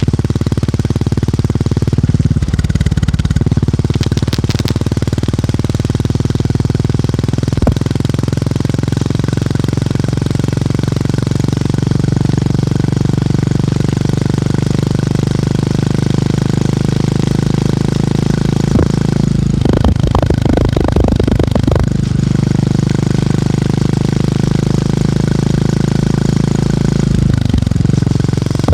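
Motorcycle engine and exhaust thumping steadily under way. The note shifts slightly a couple of times, with a rougher, rattly stretch about two-thirds of the way through.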